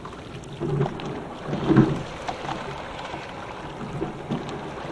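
Sculling shell under way at about 17–18 strokes a minute: water running along the hull, with louder swells about one and two seconds in and a few short knocks of the oars working in their oarlocks.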